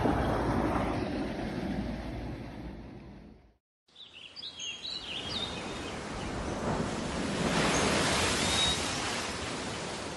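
Rumbling sea noise fading out over about three and a half seconds, cut off by a moment of silence. Then gentle waves wash on a beach, with a few bird chirps early on and the surf swelling about two-thirds of the way through.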